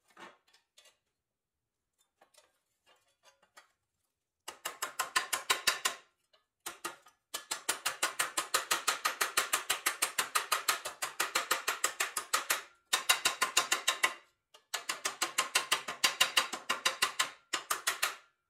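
Hammer striking the rusty pressed-steel toy truck part clamped in a bench vise, bending it over the jaw. After a few faint handling clicks, runs of quick, sharp metallic taps come several a second, broken by short pauses.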